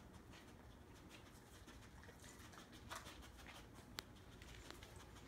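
Near silence, with faint scuffling from a dog moving about on a matted floor and one sharp click about four seconds in.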